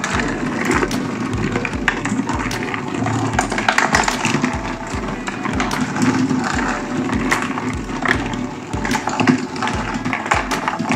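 Cardboard marble run with a motorized stair-step escalator in operation: glass marbles rolling and clicking along cardboard tracks and steps in a dense clatter, over a steady low thump about twice a second.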